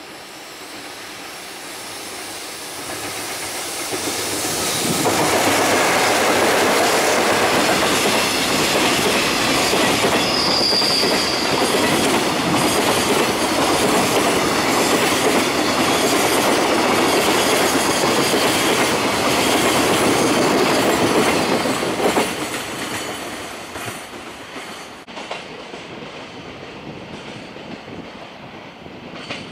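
Double-headed JR Freight EF66 electric locomotives hauling a container freight train past. The sound builds as the locomotives come up and pass about five seconds in, then the wagon wheels run on in a dense steady rattle before falling away after about twenty seconds as the tail recedes. A brief high squeal comes about ten seconds in.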